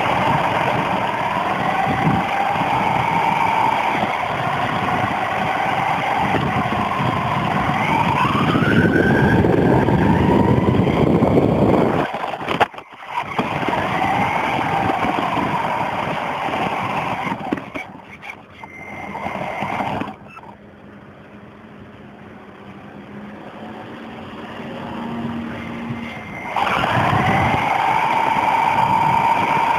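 Electric motor of a radio-controlled car whining as it drives, with a rough rumble of the wheels on the ground underneath. The whine rises in pitch about a third of the way in, cuts out for a moment near the middle, goes quiet for a stretch, then picks up again near the end.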